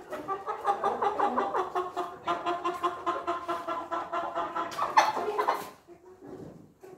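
Chickens clucking and cackling in a rapid, continuous run of calls, with one louder, sharper squawk near the end before the calling drops away.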